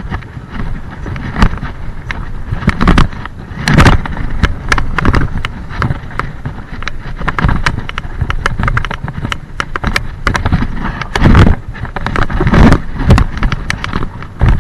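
Mountain bike riding fast down a dirt and gravel trail: wind rushing over the microphone and tyres rumbling on the ground, with frequent sharp clatters and knocks from the bike over bumps. The heaviest knocks come about 4 s, 11 s and 13 s in.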